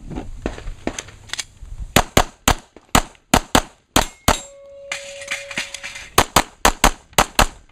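Handgun fired in rapid succession in a USPSA action-pistol stage: a quick string of shots about two seconds in, a pause of about two seconds, then a second fast string near the end.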